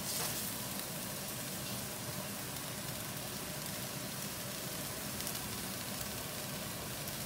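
Shredded cabbage cooking in water in a wok over a gas burner: a steady sizzling hiss, briefly louder at the very start.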